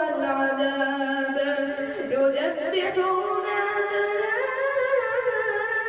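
A man's voice reciting the Quran in tajweed style: long held notes with ornamented melodic turns, the pitch stepping up near the middle.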